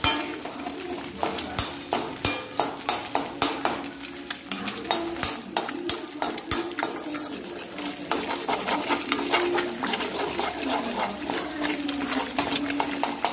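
Metal spatula scraping and clinking against a metal kadai in quick, irregular strokes, a few a second, as eggs are stirred and broken into small pieces, with the eggs sizzling in oil underneath.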